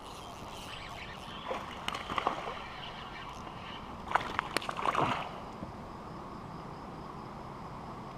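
Water splashing and sloshing against the side of a sit-on-top kayak in two short spells, with a few sharp knocks in them, over a steady hiss.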